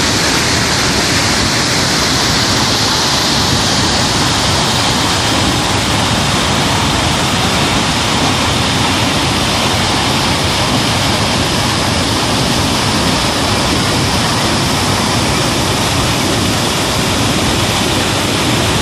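Waterfall pouring and crashing in a loud, steady, unbroken rush of water.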